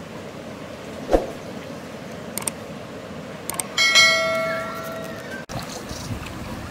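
Subscribe-button sound effect: two short clicks, then a bright bell chime of several ringing tones about four seconds in that fades and is cut off abruptly. A single thump comes about a second in.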